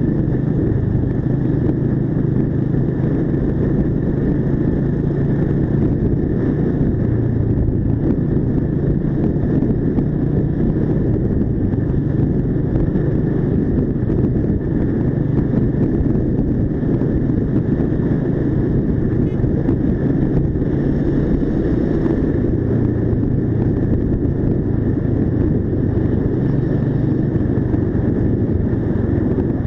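Mash Cafe 400 single-cylinder motorcycle engine running steadily while cruising, heard from the rider's seat over road and wind noise.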